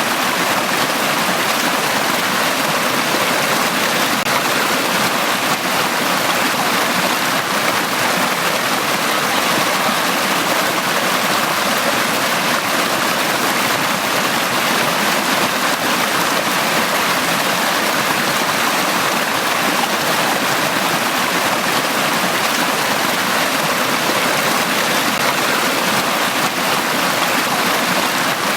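A mountain stream rushing steadily over rocks in a valley, a constant even wash of water with no pauses or changes.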